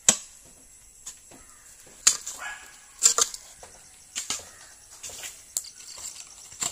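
A garden hoe chopping into earth, about one sharp stroke a second, some strokes followed by a short scrape of soil.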